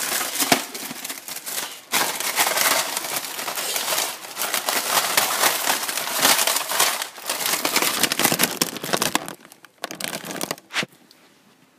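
Plastic cookie packet crinkling and rustling as a hand puppet rummages inside it. The crinkling is dense and continuous, breaks off about nine seconds in, and comes back in one short burst.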